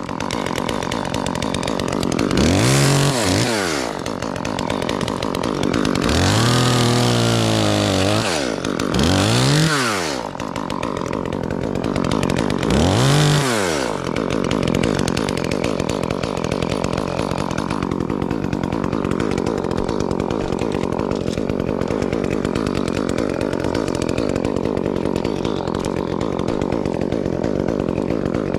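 Chainsaw engine revved up and back down four times in the first half, its pitch rising and falling each time, then running at a steady speed.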